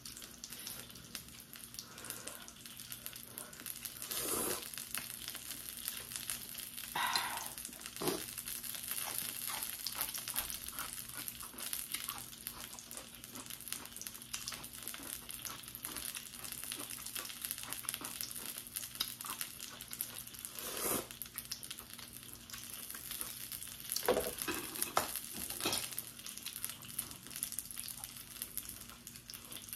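Eating sounds of instant ramen noodles: slurping and chewing over a steady fine crackle, with a few louder slurps scattered through.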